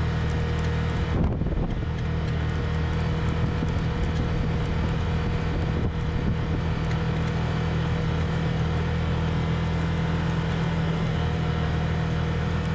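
Side-by-side UTV's engine running steadily under way, with wind on the microphone and a short knock about a second in.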